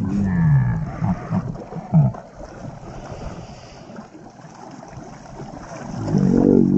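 Shallow seawater splashing as a hooked moray eel thrashes at the end of a fishing line, with a few sharp, loud splashes in the first two seconds and wind on the microphone.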